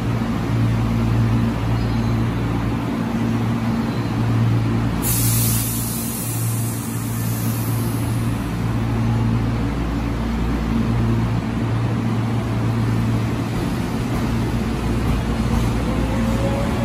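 Electric commuter train standing at the platform with its onboard equipment humming steadily; about five seconds in a burst of compressed air hisses out and fades over a couple of seconds. Near the end a faint rising whine from the traction motors comes in as the train starts to pull away.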